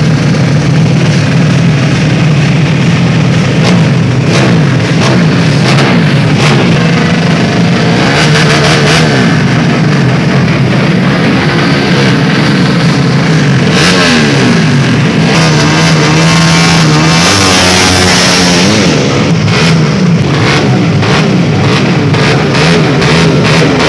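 Drag-racing motorcycles revving hard at the start line, several engines overlapping with the pitch rising and falling as the throttles are blipped.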